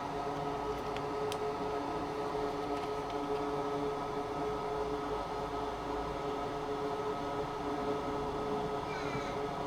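A small electric fan running with a steady hum and whine, with a faint click about a second in.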